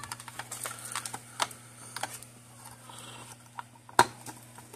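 Irregular small clicks and taps of a circuit board and its wires being pressed into place by hand in a plastic electric-fence-energizer housing, with one sharp click about four seconds in.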